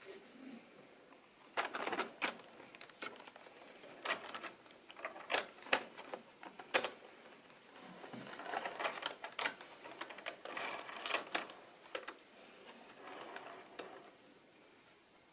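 Plastic model railway coaches being handled and pushed along the track by hand: irregular sharp clicks and short rattling clatters of wheels, couplings and bodies, busiest about halfway through.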